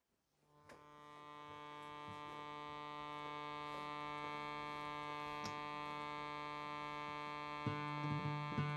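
Concertina holding one sustained chord that swells in over the first couple of seconds and then stays steady. Acoustic guitar strums come in near the end.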